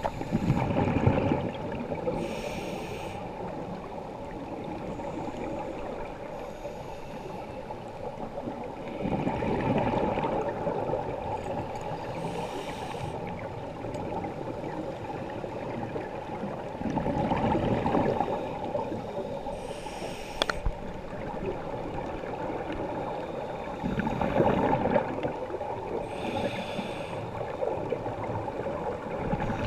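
Scuba diver breathing through a regulator underwater: a rush of exhaled bubbles about every seven to eight seconds, four times, each followed shortly by a brief high hiss of inhaled air.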